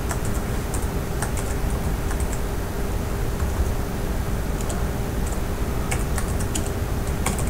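Typing on a computer keyboard: short key clicks in small irregular bursts with pauses between them, over a steady background hum.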